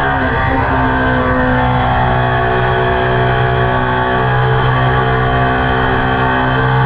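Ducati Panigale superbike's engine and Termignoni exhaust droning at a steady cruising speed, with a brief change in pitch just after the start.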